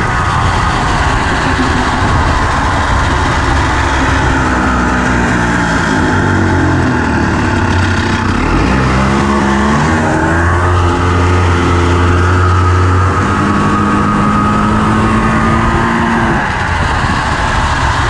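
Honda FL350 Odyssey buggy's single-cylinder engine under way, heard from the driver's seat, its pitch dropping and climbing several times as it slows and accelerates, held high for a few seconds around the middle before easing off again near the end.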